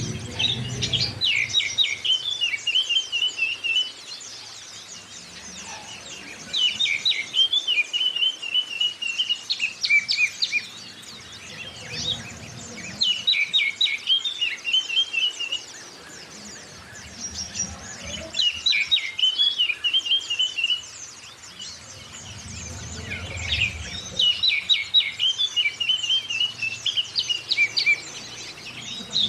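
Oriental magpie-robin (kacer) and white-eye (zosterops) song played as a bird-training lure. A loud phrase of quick sharp notes ending in a trill comes five times, over continuous high twittering chatter.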